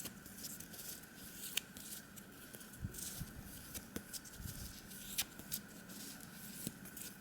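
Faint, scattered light taps and rustles of tarot cards being handled and laid out, over a low steady hum.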